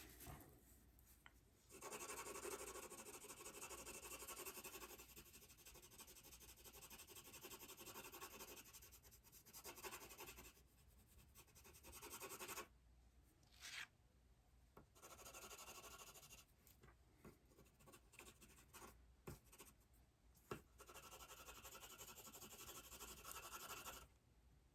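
Faint scratching of a pencil drawing on sketchpad paper, in stretches of strokes a few seconds long broken by short pauses.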